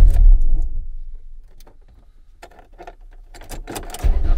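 Renault 9's 1397 cc four-cylinder engine being started with fresh oil in the sump. The first start fades away within about a second and a half, then the ignition keys click and jingle. About four seconds in the engine is started again and keeps running.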